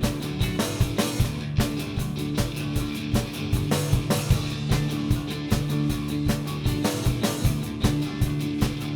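Live rock band playing an instrumental passage: a drum kit keeps a steady beat of about two to three hits a second under sustained guitar and bass notes, with no vocals.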